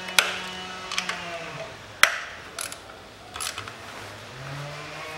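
Ratchet wrench clicking as the ignition coil hold-down bolts are loosened, with several separate sharp clicks and clinks of the tool, the loudest about two seconds in, over a faint low hum.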